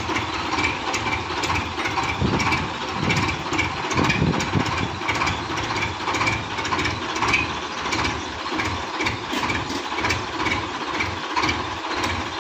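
Diesel engine of a Belarus tractor idling steadily.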